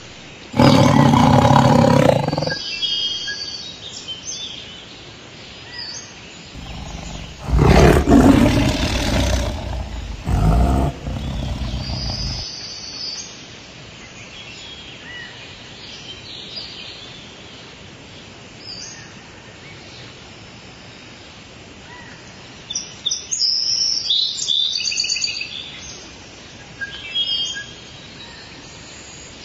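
A big cat roaring: one roar near the start and a longer, loud roar from about seven seconds in that breaks briefly and picks up again. Birds chirp and call here and there over a steady outdoor background, most busily about two-thirds of the way through.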